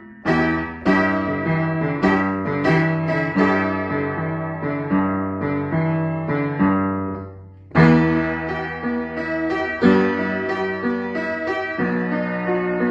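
Upright piano played by hand: chords over sustained bass notes. The notes die away about seven seconds in, then a loud chord is struck and the playing picks up again.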